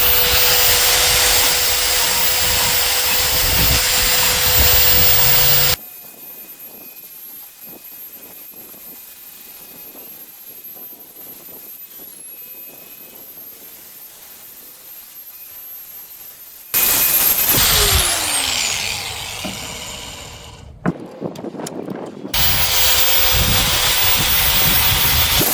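Bauer 1/2 in. x 18 in. bandfile belt sander running with a steady whine, its belt grinding against hardwood as edges are rounded off. Partway through it goes quiet. Later its motor whine falls in pitch as it winds down, and near the end it runs and sands again.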